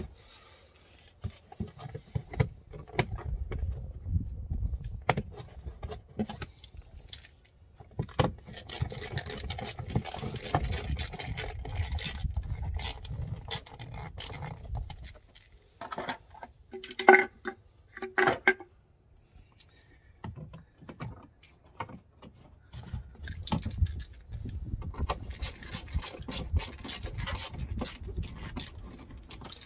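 Hands working with tools behind a car's wheel-arch liner: scraping, metal clicks and rattling, with handling rumble on the microphone. Two short pitched sounds stand out about seventeen and eighteen seconds in.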